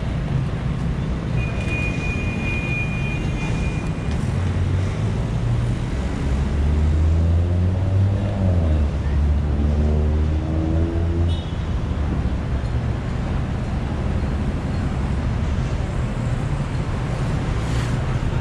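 Road traffic: a steady rumble of passing vehicles. One engine runs louder from about four to eleven seconds in, its pitch rising and falling near the middle.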